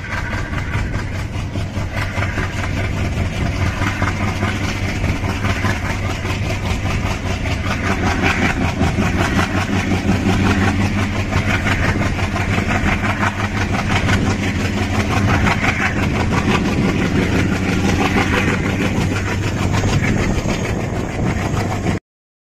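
EMD diesel locomotive (WDP4D) hauling an express train and working under load, heard from the coaches behind: its engine drones steadily over the running noise of the moving train, then cuts off abruptly near the end.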